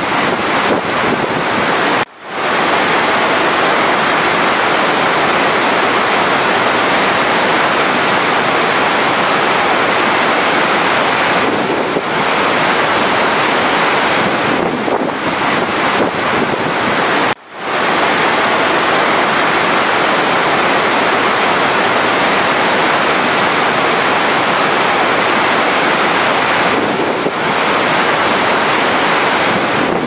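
A large waterfall rushing steadily, a dense unbroken hiss of heavy falling water. The sound cuts out sharply for a moment twice, about two seconds in and again a little past the middle.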